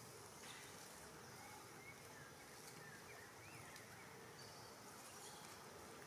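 Near silence: faint outdoor ambience with a thin insect hum and a few faint, short wavering chirps in the first half.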